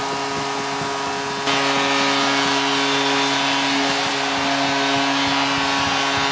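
Arena goal horn blaring one steady note over a cheering crowd, signalling a home-team goal. The crowd noise grows louder about a second and a half in.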